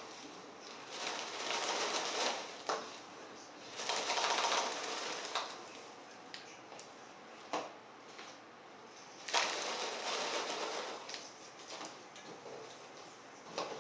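A utensil stirring and scraping in a pan of marshmallows on the stove, with three longer bursts of bag rustling and a few sharp clicks of utensil against the pan.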